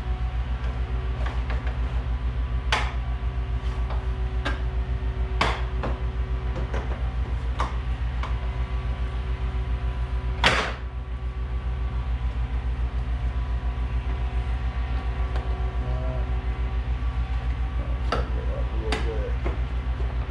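Plastic truck grille being pressed onto the front end, with several sharp plastic knocks and clicks as it is pushed into its mounting clips, the loudest about halfway through. Under it runs a steady low machine drone.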